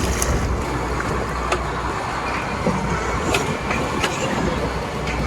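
A fishing boat on the water: a steady low rumble with a rushing noise and a few light clicks and knocks.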